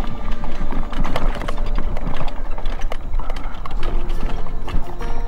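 Mobility scooter rolling over a rough dirt trail, a fast irregular clatter of its wheels and frame rattling over the bumps.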